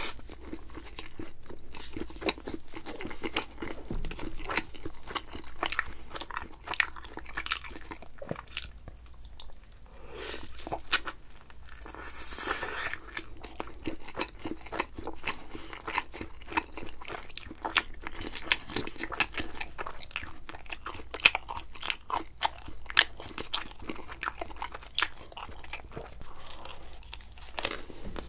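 A person biting and chewing thin-crust pizza close to the microphone, with irregular crisp crunches and wet chewing that go on throughout.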